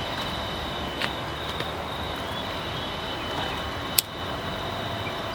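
Waste-oil forced-air burner firing the furnace: a steady rushing noise with a faint high whine over it. Two sharp clicks, about a second in and about four seconds in.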